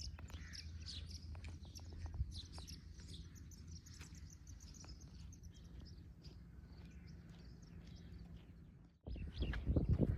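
Birds chirping over a steady low rumble. About nine seconds in the sound cuts abruptly to louder low thuds and knocks.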